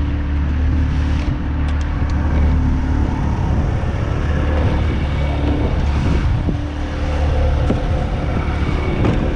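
A small fishing boat's motor running steadily with a deep, even hum, under the rush of wind and choppy water along the hull; a few light knocks of gear being handled on deck.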